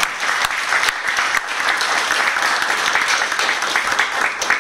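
Audience applauding: many people clapping together in a dense, steady run.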